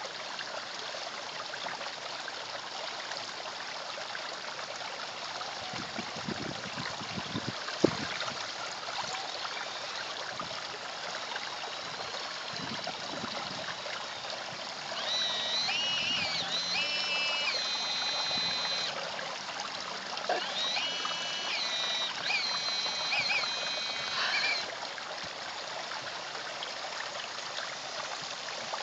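Garden pond water running and trickling steadily, with a single sharp knock about eight seconds in. Twice, for about four seconds each, a high electric whine from the R/C excavator's motors rises over the water, stepping between a few fixed pitches.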